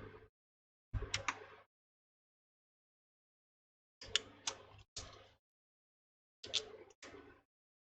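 Small clicks and light taps of handling on a repair workbench, in three short bursts separated by silence.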